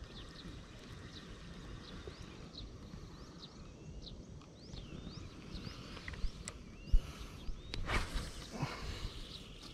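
Outdoor ambience full of many short, falling high chirps from small wild animals. A sharp knock comes about seven seconds in, and a brief louder noise follows around eight seconds.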